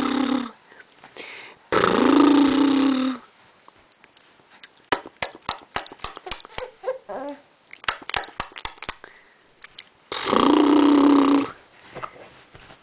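A baby's drawn-out vocalizations at a steady pitch, two long ones of over a second each, with a run of quick soft clicks and a few short baby sounds between them.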